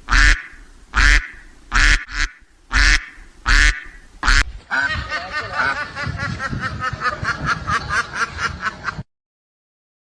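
A duck quacking loudly over and over, about one quack every 0.8 seconds, then a faster, denser run of sound for about four seconds that cuts off suddenly.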